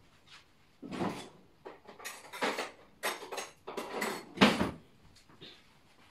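Metal cutlery clattering and clinking as a kitchen drawer of utensils is rummaged through, with a few irregular bursts over about four seconds, the loudest near the end of that run.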